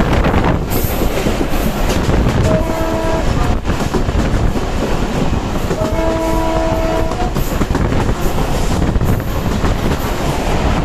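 Diesel locomotive horn, from a WDM-2CA, sounding twice, a short blast and then a longer one. It is heard from a coach of the train at speed, over a steady rush of wind and wheels clattering on the rails.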